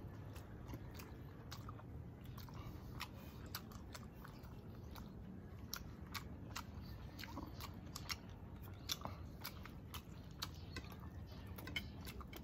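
A person chewing food up close, with frequent irregular sharp mouth clicks and smacks.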